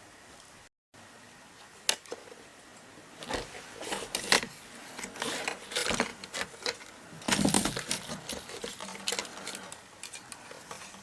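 Irregular clicks, clatter and rustling of small hard objects being handled, in a quick uneven run that is busiest in the middle and fades out near the end.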